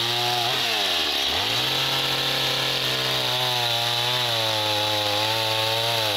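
Stihl chainsaw running at high revs while sawing through wooden fence rails. The engine pitch dips briefly about a second in, then picks up again and holds steady.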